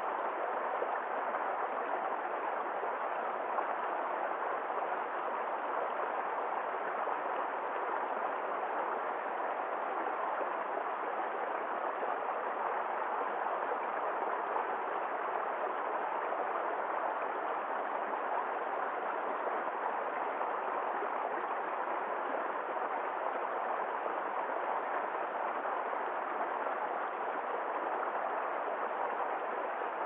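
Small forest stream spilling over a mossy log in a short cascade into a shallow pool: a steady, even rush and splash of water.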